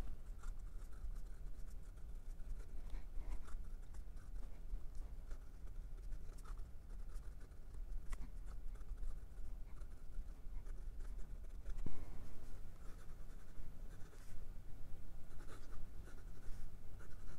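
Waterman Carene fountain pen with an 18k broad nib writing cursive on notepad paper: faint, irregular scratching of the nib's strokes as the words are written out.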